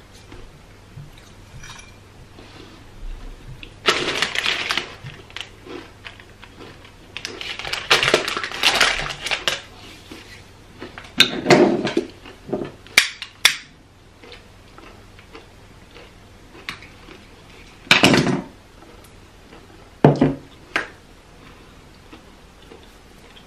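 Plantain chips crunching in about six separate bursts as they are eaten and handled in glass dishes, with a few sharp clinks of glass a little past the middle.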